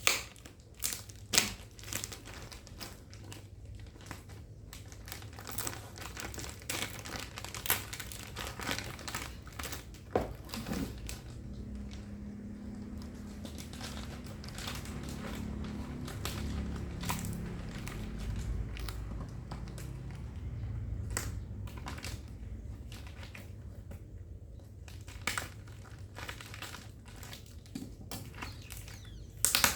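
Packaging crinkling and rustling as a boxed machine is unpacked, with scattered sharp clicks and knocks from handling the box.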